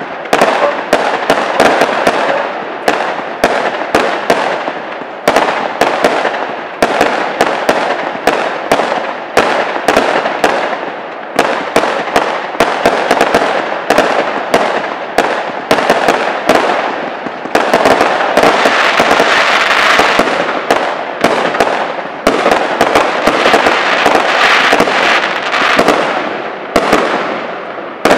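Fireworks display: aerial shells bursting one after another, several sharp bangs a second, overlapping.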